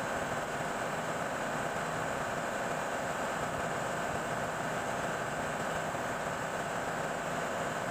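Ship's engine-room machinery running steadily: a constant hum and hiss with no separate knocks or strokes.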